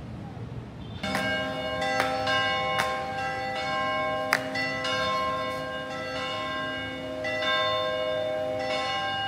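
Church bells ringing, starting suddenly about a second in: several bells of different pitches struck again and again, their tones ringing on and overlapping.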